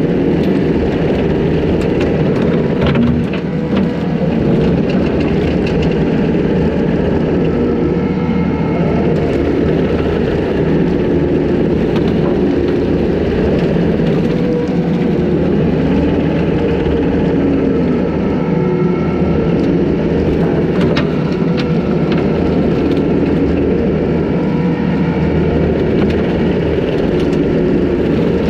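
Takeuchi TL250 compact track loader's diesel engine running steadily under load, driving a hydraulic brush cutter through tall grass and brush, with scattered sharp ticks of debris.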